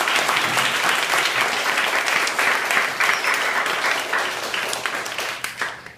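Audience clapping in applause, a dense patter of many hands that tapers off and stops near the end.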